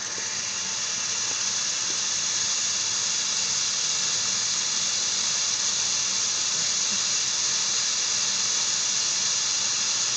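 Steady high hiss of exhaust gas forcing its way through a Ford Contour's snow-packed tailpipe while the other tailpipe is blocked by hand, building a little over the first two seconds and then holding level.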